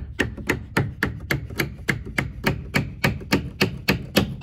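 Hammer tapping a wooden wedge in quick, even strokes, about four a second, driving a bowed tongue-and-groove board tight against its neighbour to close the gap at the joint.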